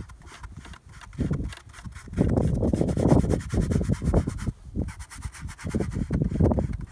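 Paintbrush loaded with oil paint scrubbing and scratching across a stretched canvas in short, irregular strokes, busiest from about two seconds in until shortly before the end.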